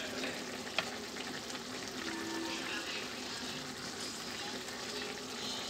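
Rice and pigeon peas boiling hard in their broth in a large aluminium pot, a steady bubbling hiss, with one sharp click about a second in.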